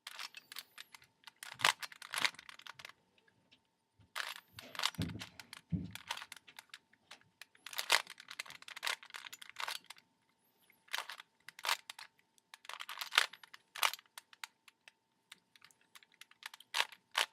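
Plastic Rubik's Cube being turned: its layers click and clack in bursts of several quick turns, with short pauses between bursts.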